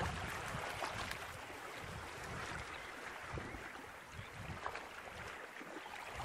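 Small choppy waves lapping and splashing, with gusty wind buffeting the microphone.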